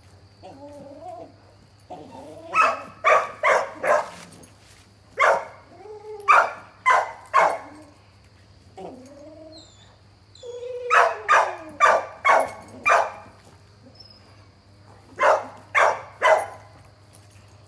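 Dogs barking in four runs of three to six sharp barks, with high whining yelps rising and falling between the runs.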